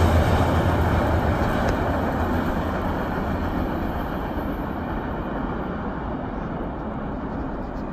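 CSX freight train of covered hopper cars rolling away on the rails, its rumble and wheel noise fading steadily as the last cars recede.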